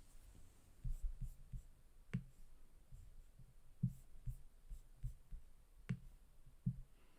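Faint room tone with scattered soft low knocks and clicks at irregular intervals, the clearest about two seconds in and near six seconds in.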